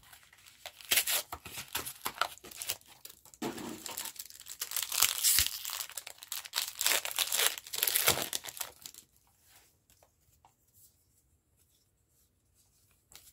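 Pokémon TCG booster pack's foil wrapper being torn open and crinkled, a crackling, rustling run for about nine seconds that then stops.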